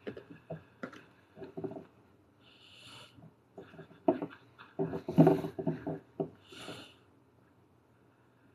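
Close handling noise from fingers working clay on a glass bottle: irregular taps, knocks and rubs, heaviest about four to five seconds in, with short breathy sniffs every second or two.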